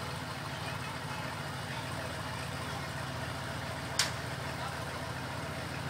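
A truck engine idling steadily, with a single sharp click about four seconds in.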